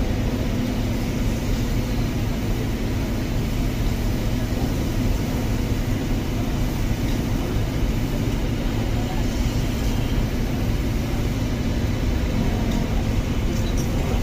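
Steady low rumble of vehicles and engines, even throughout with no distinct events.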